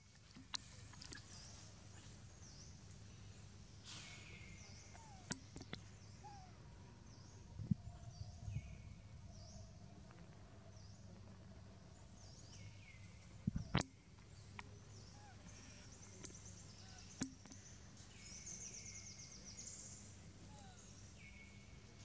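Faint outdoor ambience with a low steady hum: a bird repeating high chirps that slide down in pitch, in several runs, and a few sharp knocks or snaps, the loudest about halfway through.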